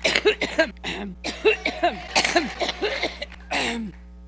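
A woman's coughing fit: a rapid string of harsh coughs that stops just before the end, over a steady electrical hum.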